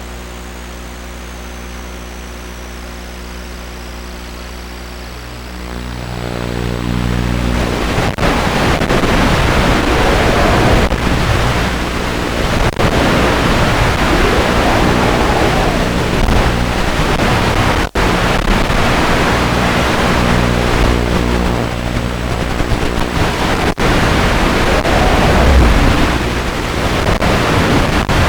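Small FPV quadcopter's brushless motors and propellers humming steadily, then spinning up about six seconds in to a loud rushing whir whose pitch rises and falls repeatedly with the throttle.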